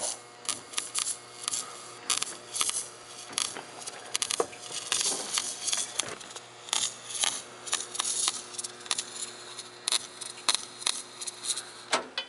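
Electric arc welder crackling and sputtering in short, irregular stop-start bursts while a seam is welded on a steel car exhaust muffler, over a steady low hum.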